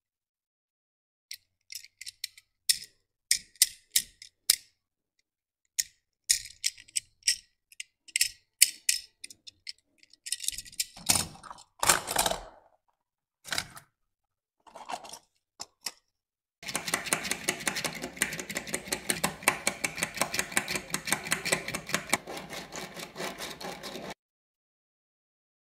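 Small sharp clicks, taps and brief scrapes as a die-cast Tomica Lamborghini Aventador SVJ toy car is handled and set down among cardboard boxes. About two-thirds of the way in comes a steady, rapid rattling lasting several seconds, then stopping suddenly: the toy car's small wheels rolling as it is pushed along a hard surface.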